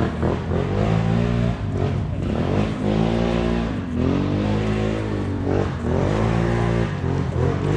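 ATV engine revving under throttle, its pitch rising and falling in repeated surges every second or two.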